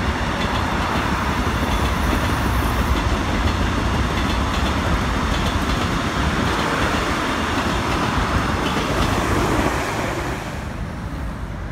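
Korail Line 1 electric commuter train passing close by, its wheels running steadily over the rails. The sound drops away about ten seconds in as the last car leaves.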